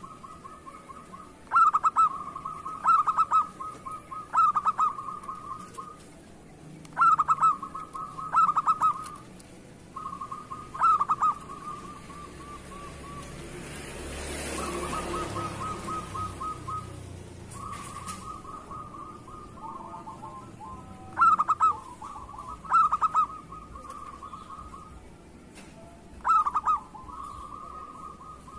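Zebra dove singing: a soft rolling coo runs on and off, broken again and again by louder accented coo phrases that come in twos and threes. A swell of rushing noise rises and fades near the middle.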